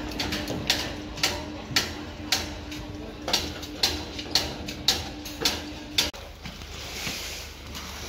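Sharp metallic knocks, about two a second, over a steady machine hum. Both stop suddenly about six seconds in, leaving a lower rumble.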